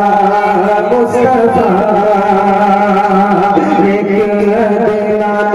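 A man singing a naat solo into a microphone over a PA, in long, wavering melodic phrases with a steady low hum underneath.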